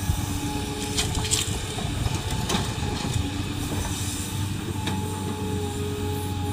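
Excavator's diesel engine running steadily under load, with a whine that comes and goes and a few sharp metallic clanks.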